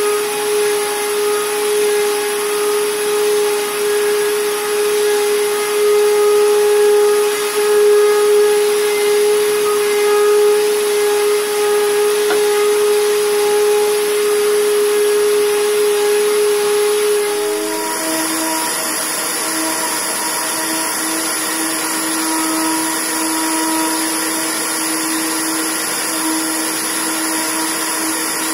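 Random orbital sander with an attached dust-extraction vacuum running steadily as it sands a zelkova wood slab, a constant whining hum. About two-thirds of the way through, the hum steps down slightly in pitch.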